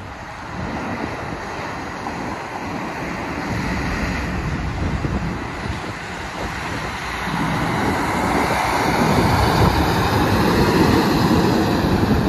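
Semi truck's diesel engine and tyres passing close: the sound grows louder over the last few seconds as a long-hood tractor-trailer approaches, and is loudest as the tractor goes by.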